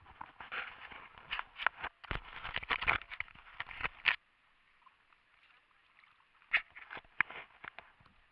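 Water splashing and sloshing around a diver's legs and fins in shallow water, a busy run of splashes with sharp clicks that cuts off suddenly about four seconds in. A few scattered splashes follow near the end.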